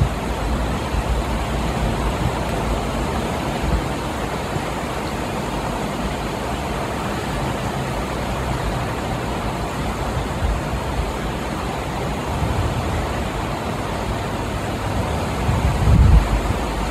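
Steady rushing noise of a fast-flowing flooded river, with low wind rumbles on the microphone near the end.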